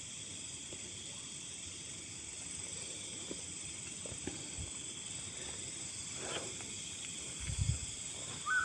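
Night insects chirring steadily, with a few faint knocks and a short low bump near the end.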